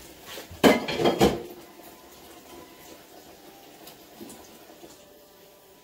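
Kitchenware clattering: a short burst of a few clanks under a second in, then faint handling sounds.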